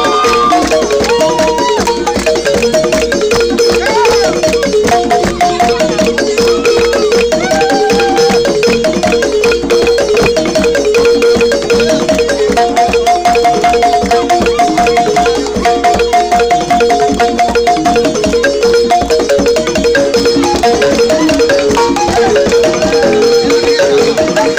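Senufo balani balafons, wooden-keyed xylophones, playing a fast, repeating dance pattern. A rapid, even pulse of struck notes runs throughout, with shorter melodic runs played above it.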